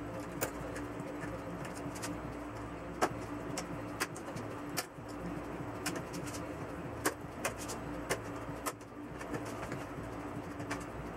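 Scattered sharp clicks and taps of the TV's plastic and metal parts being handled during disassembly, over a steady hum.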